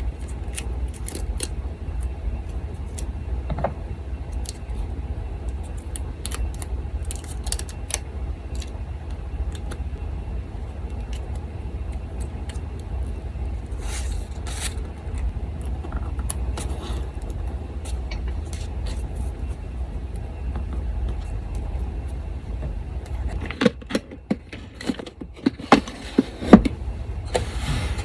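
Paper and craft tools being handled, with light rustles and small clicks over the steady hum of an electric fan. Near the end the hum drops away and a handful of sharper, louder clicks and snips stand out.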